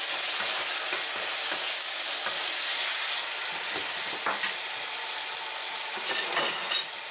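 Stir-fried vegetables and turkey in sweet and sour sauce sizzling in a frying pan, stirred with a wooden spatula that scrapes the pan a few times. The sizzle eases off a little near the end.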